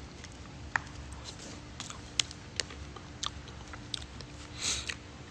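Eating oatmeal with nuts: chewing, with a spoon clicking against the bowl in scattered, irregular taps and a short rustle near the end.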